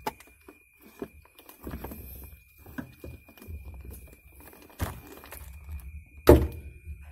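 Clicks and rustles of a hand-held wire-stripping tool biting and pulling the insulation off a red car power wire, with a sharp knock about six seconds in, the loudest sound. A faint steady high tone runs underneath.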